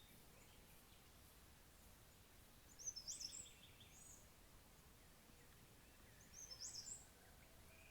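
Faint bird song: one bird repeating the same short, high-pitched phrase twice, about three and a half seconds apart, over a low steady hiss.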